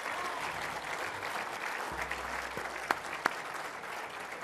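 Audience applauding, with two sharp knocks about three seconds in.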